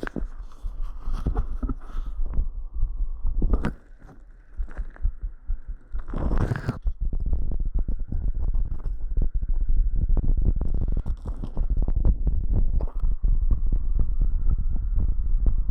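Heartbeat and body sounds picked up by a microphone held against the chest after a set of squats: a continuous low rumble with soft thumps, broken by scraping where the microphone rubs, loudest about three and a half and six and a half seconds in.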